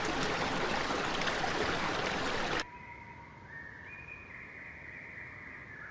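Rushing stream water that cuts off suddenly about two and a half seconds in, followed by a bird's long, steady whistled notes at two or three pitches, overlapping.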